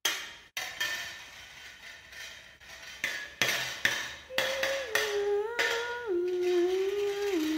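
A series of sharp struck knocks with ringing tails, irregularly spaced. From a little past halfway, a voice hums a slow melody of held notes that steps downward in pitch.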